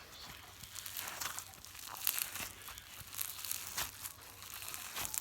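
Sticky slime being squished and mixed by hand, giving a run of small crackles, clicks and tearing sounds.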